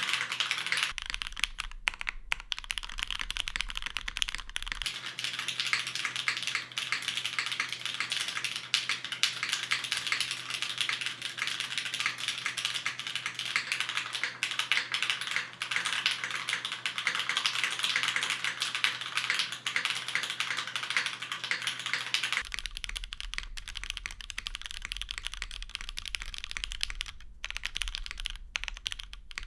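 Fast, continuous typing on a custom Matrix mechanical keyboard with polished, lubed Cherry MX Black linear switches and GMK keycaps: a dense run of key clacks. Later on, the typing thins out and gets softer.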